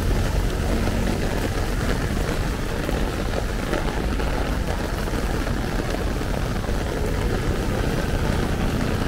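Heavy rain drumming steadily on an umbrella overhead, over a constant low rumble of city street traffic.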